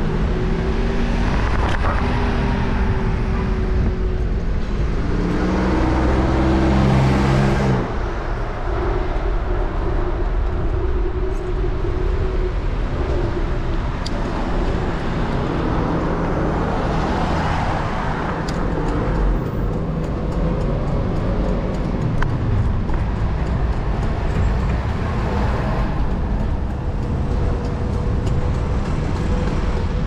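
City street traffic: car and bus engines running and passing close by. One engine rises in pitch as it speeds up and cuts off suddenly about eight seconds in, and another vehicle passes in the middle.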